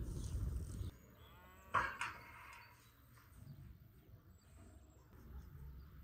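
A low rumbling noise cuts off abruptly about a second in. About two seconds in comes one short, loud bleating call from a farm animal, then quiet background.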